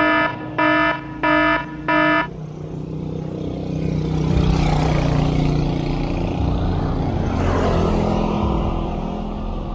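Four short, evenly spaced beeps in the first two seconds, then a motor vehicle's engine growing louder as it comes up and passes, with a second swell near the end.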